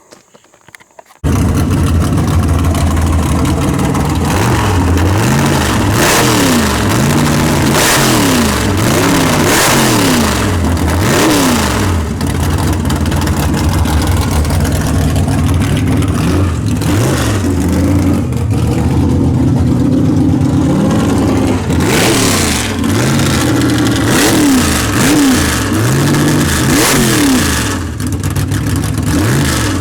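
Big-block Chevrolet V8 with a tunnel ram coming in abruptly about a second in and running, its revs rising and falling in repeated blips. The engine is being revved while its ignition timing is checked with a timing light, with the start retard box holding the timing at 32 degrees.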